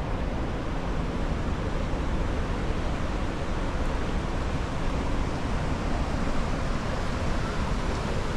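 Steady rushing of whitewater from St. Mary Falls churning into the pool below, a constant even roar of moving water.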